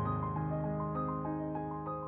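Background music: gentle piano with sustained chords and a simple repeating melody.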